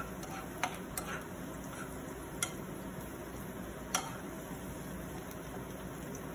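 A utensil stirring garlic, pine nuts and whole spices frying in olive oil in a skillet, with a few sharp clicks against the pan, the loudest about four seconds in, over a low steady sizzle.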